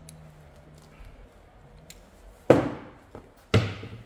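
Three sharp knocks of hand tools, a pair of pliers among them, set down on a wooden workbench top, about a second apart from about two and a half seconds in.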